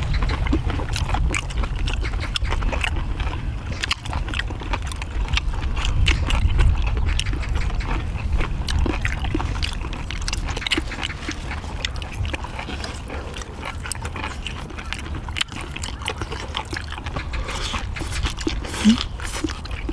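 Close-up chewing of chewy grilled pork intestines (makchang): many small wet clicks and smacks of mouths working on the food, over a steady low rumble.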